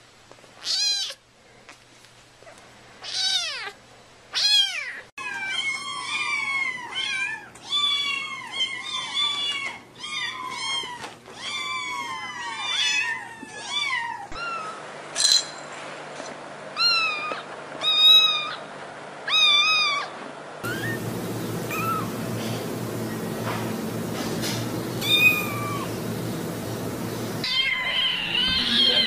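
Kittens mewing in short, high calls that rise and fall in pitch. A single kitten gives a few mews first, then several kittens mew rapidly over one another. Later come single mews, some over a steady background hiss.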